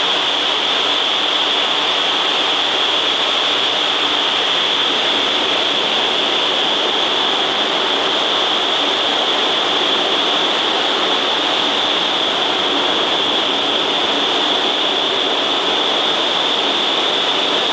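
Vertical wind tunnel running, its fans driving a steady, loud rush of air up through the flight chamber, with a constant high-pitched hiss over it.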